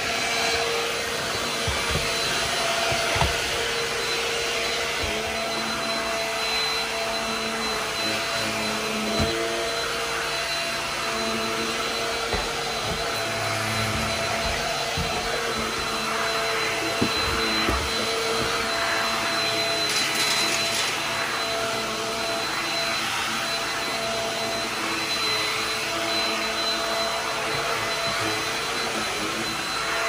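Stick vacuum running steadily, a constant motor hum with a high whine, as its floor head is pushed back and forth over hardwood and rubber floor mats. A few light knocks sound now and then.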